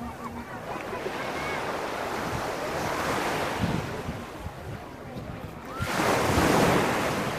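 Small waves breaking and washing up the beach. A swell comes about halfway through and a louder one near the end, then it eases off.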